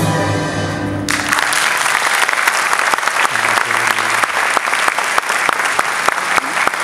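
A held orchestral chord ends about a second in, and a theatre audience breaks into sustained applause, many hands clapping at once.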